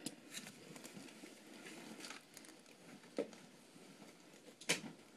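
Faint handling noise, a low rustling as the camera and gear are moved, with two light knocks, about three and about four and a half seconds in.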